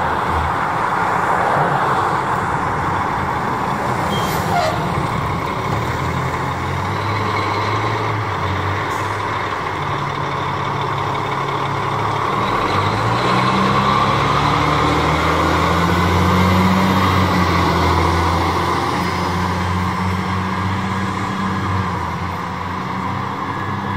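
Pierce fire engine's diesel engine pulling out and accelerating away, its note climbing and stepping through gear changes in the middle stretch.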